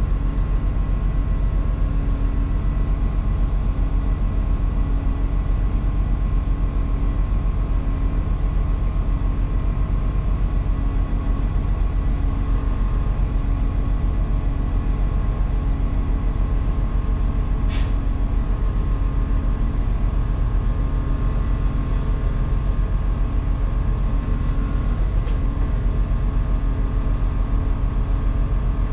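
A 1998 New Flyer C40LF bus's natural-gas engine idling steadily, heard from inside the bus: a low drone with a thin steady whine above it. A short sharp tick sounds about two-thirds of the way through.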